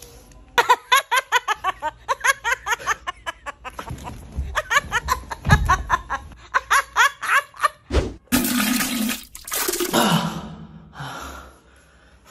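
A person laughing hard in quick, repeated bursts. About two thirds of the way through there is a thump and about a second of rushing noise, then a few short laughs.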